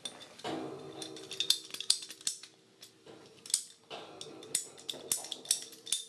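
Handheld ratcheting PVC cutters being squeezed through 3/4-inch liquid-tight flexible conduit, giving a series of sharp clicks about a second apart, with a low steady tone beneath much of it.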